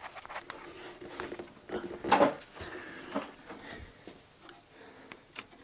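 Faint handling noises around an engine bay: a few light clicks and knocks as hands and camera move about the timing belt, the loudest about two seconds in.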